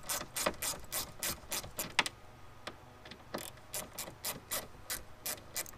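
Hand ratchet clicking in quick runs of about four clicks a second as screws are backed out of a jet ski's plastic body panel, with a short pause a little past halfway.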